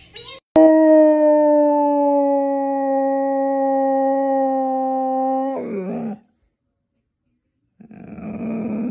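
A dog howling: one long, steady howl of about five seconds that breaks and drops in pitch at its end. After a short pause, a second, rougher and shorter howl starts near the end.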